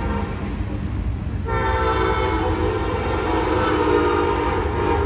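A horn sounds one long held blast of several steady tones, starting suddenly about a second and a half in and lasting about three and a half seconds, over a low rumble.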